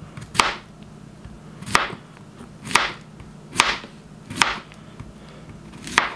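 Chef's knife slicing a zucchini into rounds, the blade knocking on the cutting board six times, about once a second.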